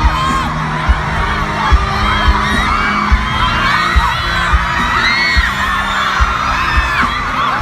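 A large crowd of fans screaming and cheering over loud music with a steady thudding bass beat.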